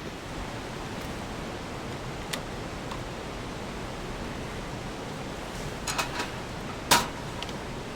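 Steady rushing of a mountain river. Near the end come a few sharp clicks, the last and loudest about a second before the end.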